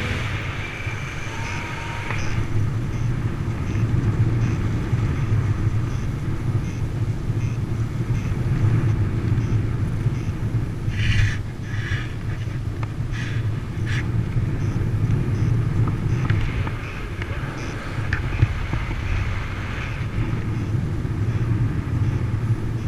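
Strong wind rushing over the microphone in flight, a steady low rumble, with a few brief hissy gusts about halfway through.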